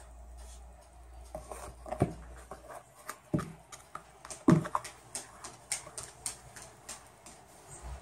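Irregular taps and clicks of a cockatoo moving about on the floor, with a few louder knocks about two, three and a half and four and a half seconds in.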